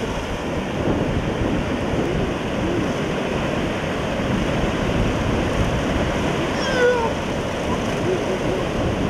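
Breaking surf and water washing and splashing around people wrestling in the shallows, with wind buffeting the microphone. A few short high cries glide down in pitch over it, the clearest about seven seconds in.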